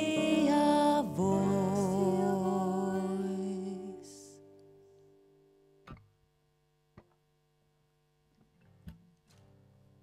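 Women singing the held final notes of a gentle song in harmony over acoustic guitar, the chord dying away about four seconds in. Then near quiet with a few faint clicks.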